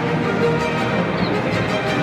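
Background music, steady throughout, with a few faint short high chirps over it.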